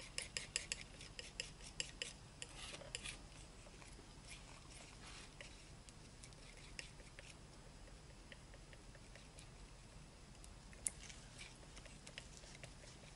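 Steel palette knife mixing paint on a palette: light clicks and scrapes of the blade, quick and frequent in the first three seconds, then sparse, with a few more near the end.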